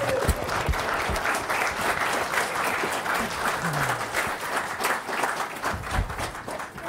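Audience applauding: a steady round of clapping that fades away near the end.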